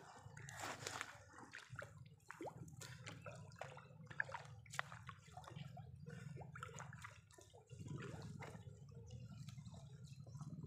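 Water dripping and splashing off a wet monofilament fishing net as it is hauled by hand out of the lake into a small boat: irregular small drips and patters.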